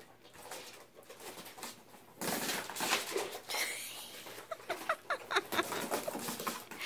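Pet guinea pigs scampering and popcorning around a fleece-lined pen: a rustling scuffle of movement, then a quick run of short, rising squeaks in the second half.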